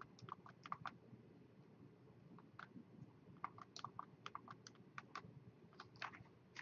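Faint, irregular clicking of keys being pressed as a calculation is entered into a calculator.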